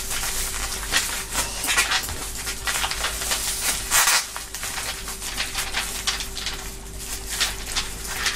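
Bubble wrap and plastic packaging crinkling and rustling as it is handled and pulled apart, an irregular crackle with a sharper burst about four seconds in as scissors cut into the plastic.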